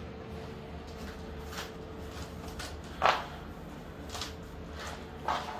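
A few short knocks and scuffs, the loudest about three seconds in and another near the end, over a steady faint hum.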